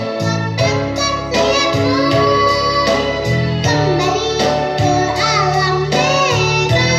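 A song: a child's voice singing a melody with wavering held notes, over instrumental backing with a steady beat.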